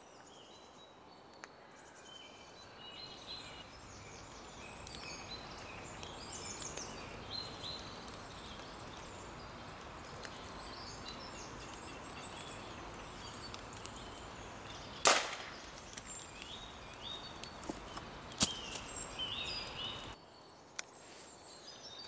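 Small birds chirping and singing, then about fifteen seconds in a single sharp crack of a Daystate Red Wolf pre-charged pneumatic air rifle firing a pellet, followed about three seconds later by a smaller sharp click.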